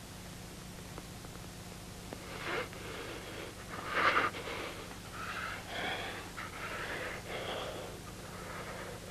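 A person's heavy breathing and gasps, loudest about four seconds in, over a steady low hum in the soundtrack.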